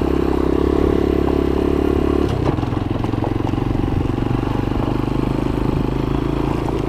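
Motorcycle engine running steadily as the bike rides along; about two seconds in the engine note drops and it carries on at a lower, even pitch.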